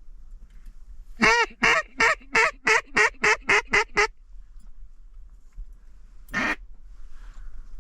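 Hen-mallard-style quacking, close and loud: a fast descending series of about ten quacks, the first ones longest, followed a couple of seconds later by a single quack.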